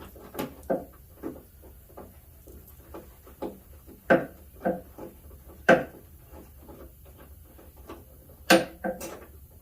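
Irregular knocks and clicks of hard parts being handled, with a few sharper, louder knocks about four, five and a half, and eight and a half to nine seconds in, over a low steady hum.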